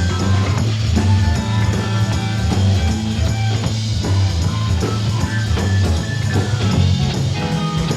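Live rock band playing an instrumental jam: electric guitar over bass and drum kit.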